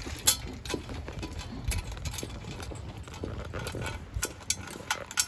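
Footsteps walking through snow: a run of uneven short steps, about two a second.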